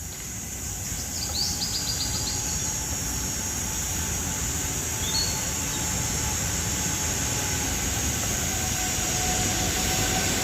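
Steady background noise with a faint hum, growing a little louder toward the end. A short run of high chirps comes about a second and a half in, and a single brief chirp comes around five seconds in.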